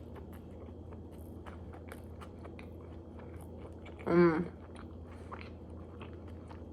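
Close-up chewing and biting of fast food, with small wet mouth clicks and light crunches. A short voiced hum about four seconds in.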